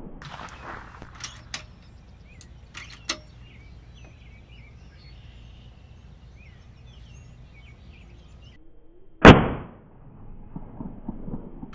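A single sharp shot from a PCP air rifle, an FX Impact, about nine seconds in. It is preceded by a few light clicks of handling in the first three seconds. Faint bird chirps sound in the background.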